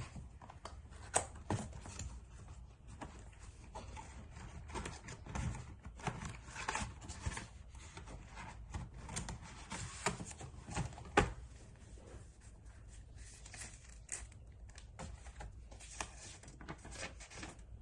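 Unboxing handling noise: packaging and paper inserts rustling and being pulled, with irregular small clicks and taps and one sharper knock about eleven seconds in.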